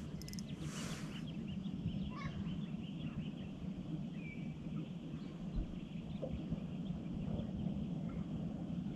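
Quiet open-air ambience on calm water: a steady low rumble with faint bird calls chirping in the distance during the first few seconds, and a brief rustle about a second in.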